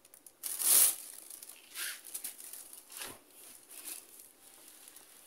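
Plastic bag rustling and crinkling in several short bursts as it is handled, the loudest about a second in.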